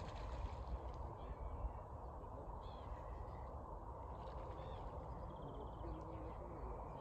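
A fishing reel being wound with a fast fine clicking for about the first second, then birds calling a few times over a steady low rumble.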